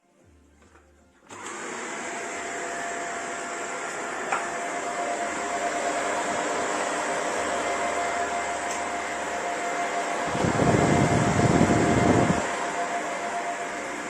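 Vacuum cleaner running steadily with a constant motor whine. It starts about a second in, after a moment of near silence. Near the end a louder, lower rush of noise swells for about two seconds, then drops back.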